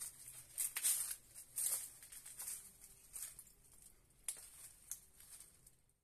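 Faint footsteps with a gritty crunch at each step, about one a second.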